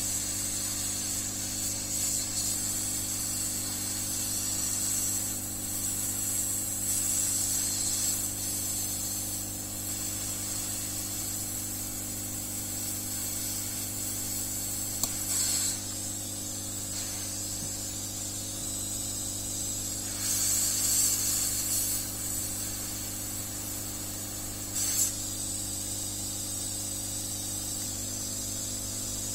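Hot air rework station blowing air from its wand: a steady hiss over a constant low hum, with a few brief louder rushes of air in the second half.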